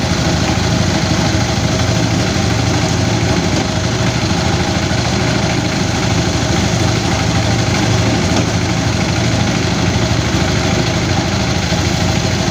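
Engine-driven rice threshing machine running steadily, a constant engine drone with an even level throughout.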